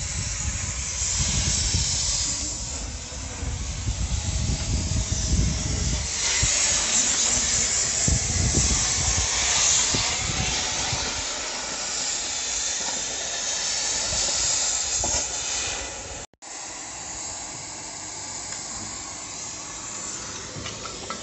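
Gas cutting torch hissing steadily as it cuts up the steel trolleybus body, with wind rumbling on the microphone, heavier in the first half.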